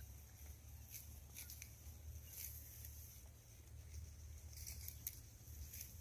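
Faint outdoor ambience: a steady low wind rumble on the microphone, with a handful of faint, short, high-pitched ticks scattered through it.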